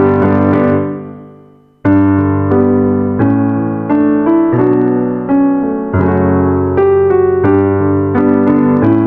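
Background piano music. It fades out about a second in, then cuts back in abruptly and plays on with chords struck in a steady pulse.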